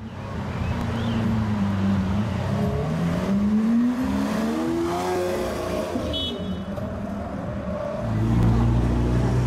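Lamborghini Aventador's V12 with a Capristo exhaust, its pitch climbing steadily for a few seconds as the car accelerates, then a louder, deep, steady rumble near the end.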